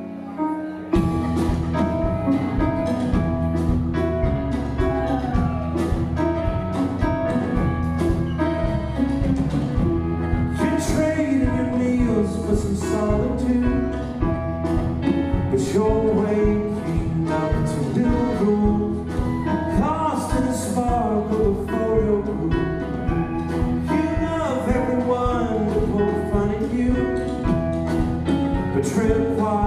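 A live rock band playing a song with singing: drum kit and keyboard among the band, the full band coming in about a second in.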